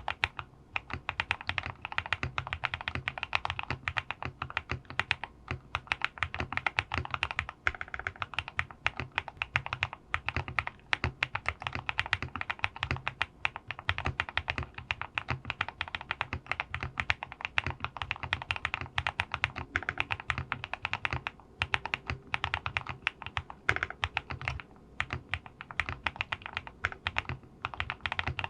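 Typing on a QK65 custom mechanical keyboard with lubed linear switches (Oil King housings with NK Cream stems) in an aluminium plate: rapid, continuous keystrokes, each a low thud with a clack above it, broken by a few short pauses.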